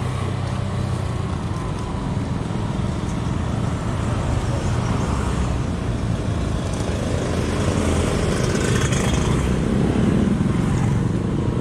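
Street traffic heard from a moving bicycle: motorcycle engines running close by, over a steady low rumble of wind and road noise that grows a little louder after about eight seconds.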